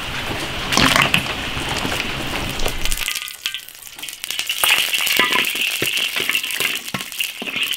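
Water boiling hard in an iron wok as a blanched cow's hoof is lifted out with a metal skimmer. About three seconds in it cuts to oil in the hot wok: a steady high sizzle as a lump of rock sugar fries in it, with the metal ladle clinking against the wok. This is the start of frying the sugar to colour the red-braised hoof.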